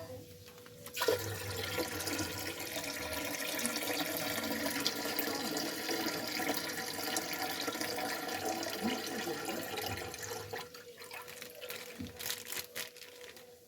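Liquid sound, a steady splashing or rushing with fine ticks. It starts suddenly about a second in and eases off near the end.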